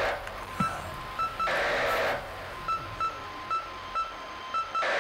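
Small portable radio giving bursts of static, three of about a second each, with short high beeps between them, about two a second: a broadcast breaking up into interference.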